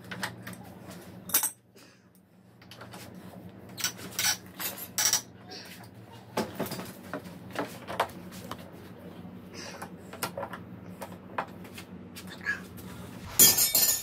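Scattered metal clinks and clicks of a wrench and hand tools working on a motorcycle's steering head as the steering stem nut is adjusted, over a steady low hum. There is a louder burst of clatter near the end.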